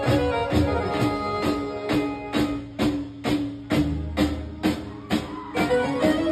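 Live garba music played over PA speakers: a keyboard holds sustained notes over a steady percussion beat, a sharp strike about twice a second.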